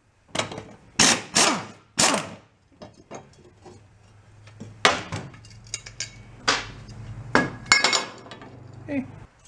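Hand tools knocking and clanking on steel while lawn mower blades are being taken off: about ten sharp metal strikes, each ringing briefly, four in quick succession at the start and more scattered after the middle. A low steady hum runs under the later strikes.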